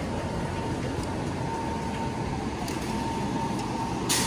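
Steady background noise of a large store: a low rumble with a faint steady tone. There is one short click near the end.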